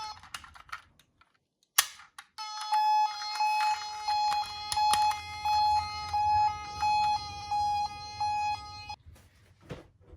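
Toy ambulance's electronic siren: a falling wail dies away, a sharp click sounds about two seconds in, then an alternating two-tone hi-lo siren pulses for about six and a half seconds and stops about nine seconds in.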